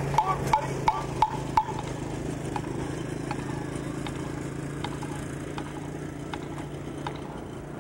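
Evenly spaced sharp clicks keeping time for a drum corps rehearsal, about three a second, that drop to fainter, sparser clicks about a second and a half in, over a steady low hum.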